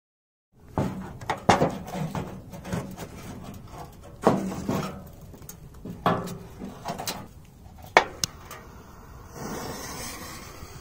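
Knocks, clicks and scrapes of a battered sheet-metal oven and its debris being handled while a firecracker is set inside it. Near the end comes a soft hiss as the fuse burns.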